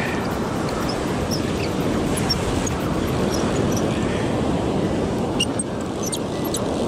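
Ocean surf washing in around the shallows, a steady rush of breaking waves and foam, with a few faint high chirps and a couple of light clicks near the end.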